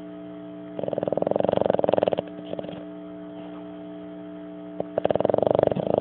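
Boston terrier snoring in its sleep: two long snores, each a fast rattle of pulses, the first about a second in and the second about five seconds in. A steady electrical hum runs underneath.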